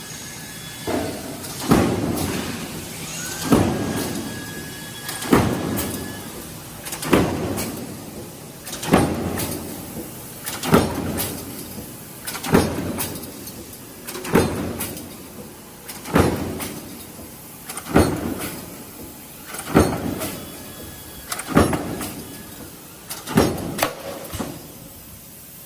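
Punch press on a CNC punching line striking in a steady rhythm, about one stroke every 1.8 seconds. Each stroke is a sharp metallic bang with a lighter knock just before it and a short ringing decay.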